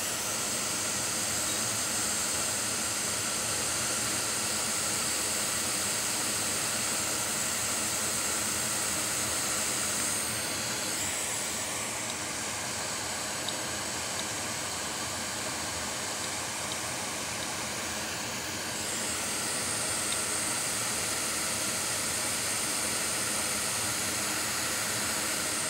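Steady hiss of a hot air rework station blowing onto a flux-covered circuit board while corroded parts are desoldered. The hiss thins out and softens for several seconds in the middle.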